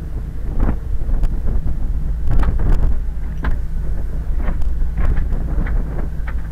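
Car ferry's engine droning low and steady under wind buffeting the microphone, with scattered sharp clicks and knocks.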